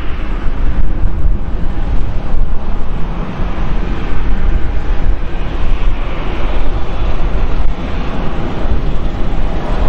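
Twin-engine Airbus A320 jet on its takeoff roll, engines at takeoff thrust: a loud, steady rumble with a rushing roar above it. Wind buffets the microphone throughout.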